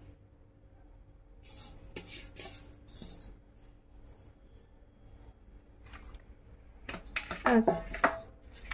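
Steel bowl and plastic sieve handled on a stone kitchen counter: soft scrapes and taps as henna powder is tipped out, then a louder clatter and scrape with a brief squeal near the end as the sieve is set into the steel bowl and moved.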